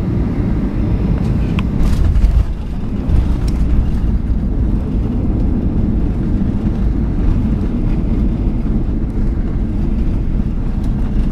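Cabin noise of a Ryanair Boeing 737-800 rolling out on the runway after landing: a loud, steady low rumble from the engines and the wheels on the runway, with a few light clicks about two seconds in.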